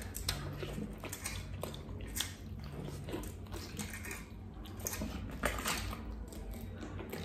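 A man biting into a whole roast beggar's chicken held in both hands, tearing at it with his teeth and chewing, with irregular short clicks and smacks of mouth and meat.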